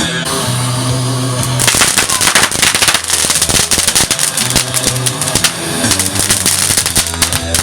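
Rapid, dense crackling pops, like a string of firecrackers, starting about a second and a half in and stopping near the end, over loud rock music with a steady bass line.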